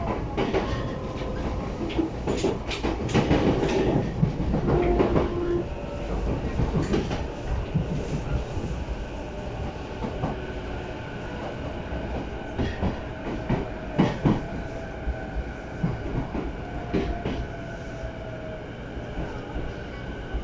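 Running sound inside a JR East E233 series electric commuter train nearing a station: a steady rumble with irregular clicks and knocks of the wheels over rail joints and points, loudest in the first few seconds. A faint whine, falling slowly in pitch, runs under it as the train slows.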